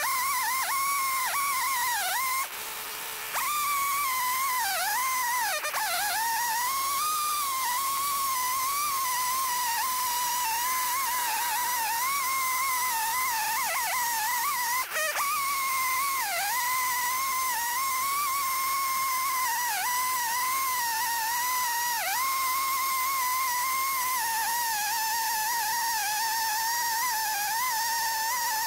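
Chainsaw in an Alaskan chainsaw mill held at high revs while ripping a walnut log lengthwise. Its steady tone wavers and dips briefly every few seconds as the saw loads up in the cut, with a short drop in level about two and a half seconds in.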